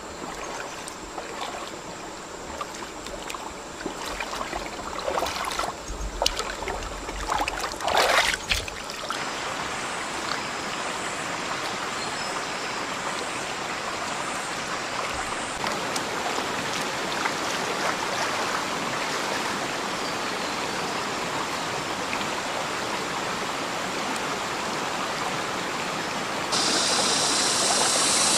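Stream water running steadily, with irregular splashes and knocks over the first several seconds. Near the end a brighter hiss comes in suddenly.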